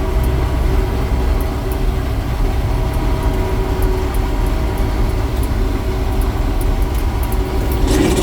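Newly installed 516 engine of a farm machine running steadily at an even speed, a continuous low rumble with a constant drone.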